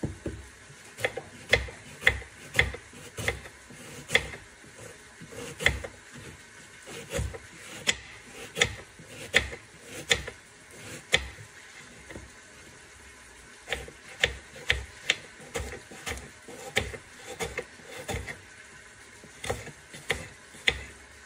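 Kitchen knife slicing an onion on a wooden cutting board: a crisp knock as each cut meets the board, about one to two cuts a second, with a short pause about halfway through.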